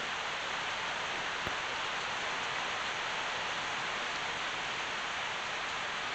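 Heavy rain falling steadily: an even hiss, with a single faint tick about one and a half seconds in.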